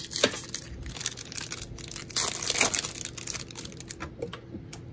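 The plastic wrapper of a 2021 Panini Prestige football card pack being torn open and crinkled. The crackling is loudest about two seconds in, then dies down as the cards come out.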